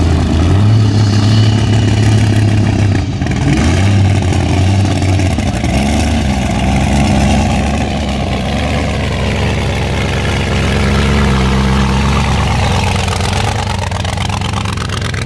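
Supercharged hot rod engine running through open zoomie exhaust headers, idling with its pitch shifting as the throttle is blipped.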